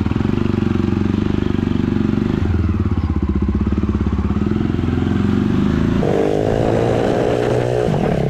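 Jawa Perak's single-cylinder engine running at a loud, pulsing low idle, then revved up about six seconds in, its pitch rising, dipping briefly and climbing again as the bike pulls away.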